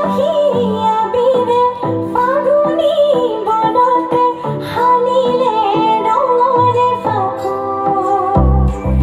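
Assamese Bihu song with a woman singing the melody over a low drum beat, played loud through a stage sound system.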